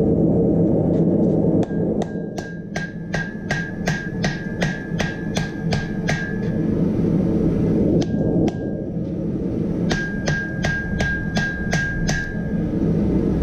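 Hammer blows on hot steel over an anvil, forge-welding a wrought iron and 5160 spring steel billet: a quick run of about a dozen ringing strikes, a pause with a single blow, then a second run of about seven. A steady low rumble sounds before and after the hammering.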